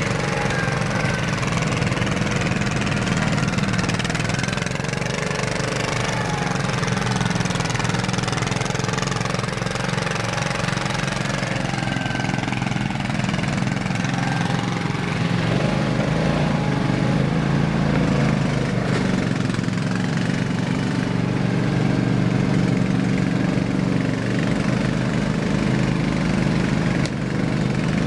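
Small garden tractor engine running steadily.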